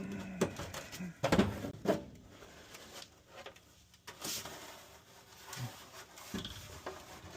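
Parts of a furnace condensate drain being handled and pulled off: a few sharp clicks and knocks in the first two seconds, then quieter scraping and a couple of low thumps near the end.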